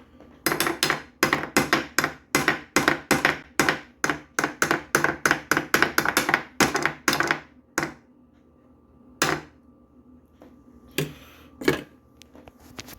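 A run of sharp knocks, about three a second for some seven seconds, then three single knocks spaced a second or so apart.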